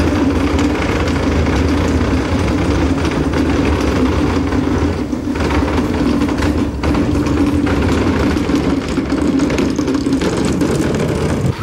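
A steady, loud, low engine hum like an idling motor, holding one droning tone throughout; it cuts off abruptly at the very end.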